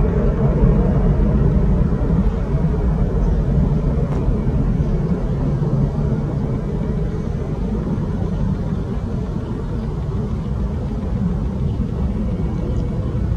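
Airbus A330's twin jet engines at takeoff power, a deep steady rumble slowly fading as the airliner climbs away.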